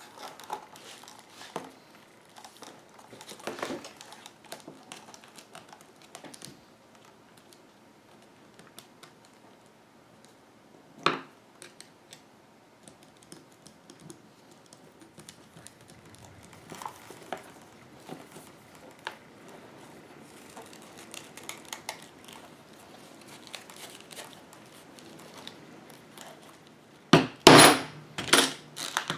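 Hands fitting hardware to leather holster straps on a workbench: light leather rustling and scattered small clicks of metal screw posts and tools. There is a sharp knock about eleven seconds in, and a quick run of loud clicks near the end.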